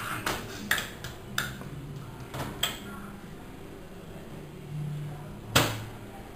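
Hard objects clattering and clicking in a kitchen: several sharp knocks in the first few seconds, a brief low hum, then a louder knock about five and a half seconds in.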